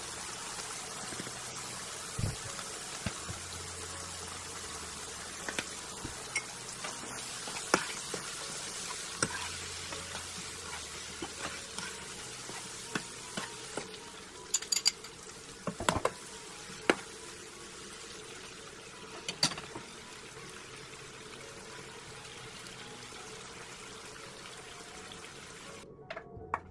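Shrimp and cherry tomatoes sizzling in a hot skillet: a steady frying hiss, broken by scattered sharp clicks and knocks of a utensil against the pan.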